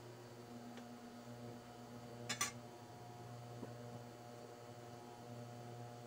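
Induction cooktop humming steadily under a covered pot, with one short click about two and a half seconds in.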